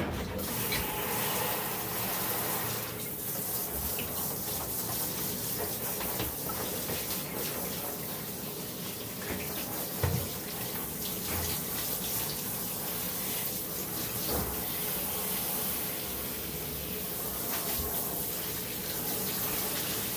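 Handheld shower sprayer running steadily, water spraying onto a small dog's coat and splashing into a bathtub, with one brief knock about halfway through.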